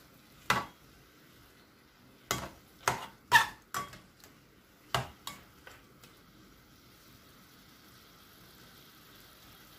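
A metal ladle knocks and scrapes against a frying pan as pieces of beef are stirred: about eight sharp clanks, some ringing briefly, in the first six seconds. A faint, steady sizzle of the meat frying runs underneath and is left alone after the stirring stops.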